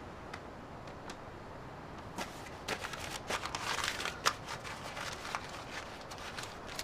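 A run of light rustling and crackling clicks over a steady background hiss, starting about two seconds in, thickest in the middle and thinning out near the end.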